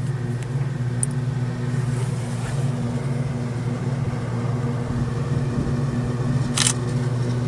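Diesel farm-machinery engine running steadily at an even speed, with a short sharp click near the end.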